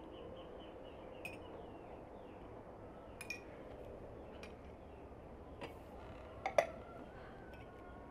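Metal teaspoons clinking against small glass jam bowls and tea glasses: a scatter of light clinks, the loudest pair about six and a half seconds in.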